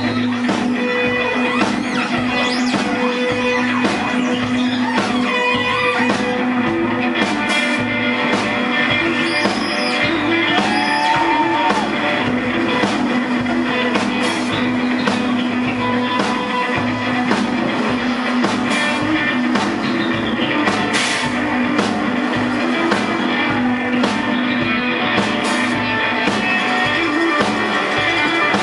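Live rock band playing loud with electric guitars, bass guitar and drum kit, recorded from the audience.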